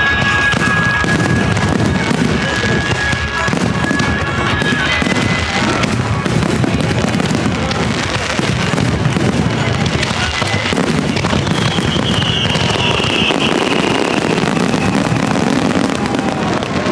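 Fireworks bursting and crackling in a dense, unbroken volley, with music playing alongside.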